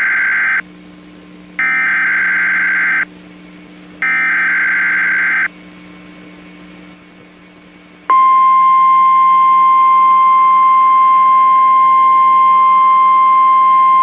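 Emergency Alert System SAME header: the tail of one burst of screechy digital data tones, then two more bursts about a second and a half long with a second's pause between. After a short gap, the NOAA Weather Radio 1050 Hz warning alarm tone starts about eight seconds in and holds steady and loud.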